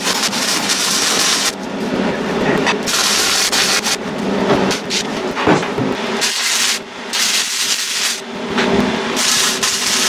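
MIG welding arc on mild steel, a loud continuous crackle laid down as several welds with short breaks between them.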